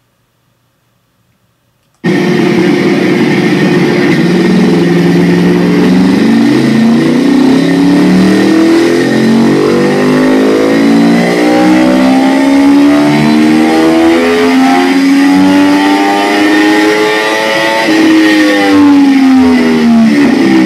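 A 2013 Yamaha R1's crossplane inline-four, which fires unevenly, makes a full-throttle pull on a motorcycle dyno. It starts suddenly about two seconds in, rises steadily in pitch for about sixteen seconds, then drops as the revs fall near the end, with a steady high whine underneath.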